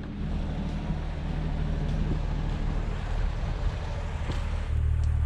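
A motor engine running nearby with a steady low hum; about four and a half seconds in its note drops lower and gets louder.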